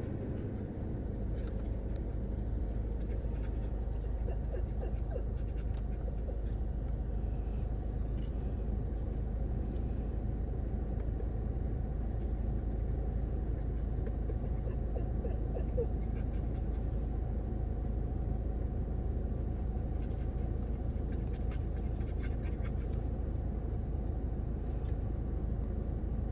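Car running, heard from inside the cabin as a steady low rumble that firms up about a second in, with a few faint high chirps now and then.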